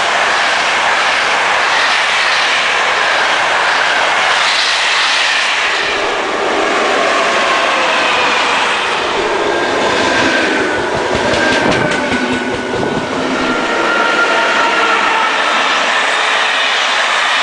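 Electric-hauled passenger trains passing close by at speed: a steady rush of steel wheels on the rails with a thin high whine running through it, and a quick run of clacks over rail joints about ten to twelve seconds in.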